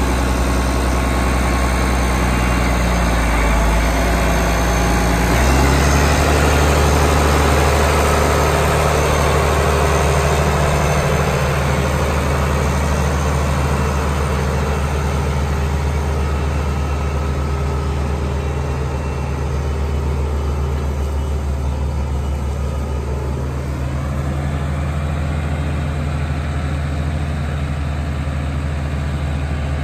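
International 1566's six-cylinder turbo diesel engine running, at first at a low idle, then picking up speed about five seconds in and holding there as the tractor drives away, growing slightly fainter.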